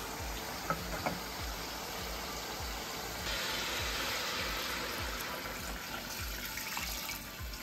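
Water poured from a jug into an aluminium pressure cooker of browned mutton, gushing and splashing onto the meat and hot oil. The pour grows louder and fuller about three seconds in.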